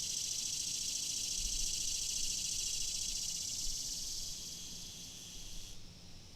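Cicadas buzzing in a dense, high-pitched drone with a fine rapid pulse. The buzz fades from about four seconds in, and its loudest part cuts off near the end, leaving a fainter buzz.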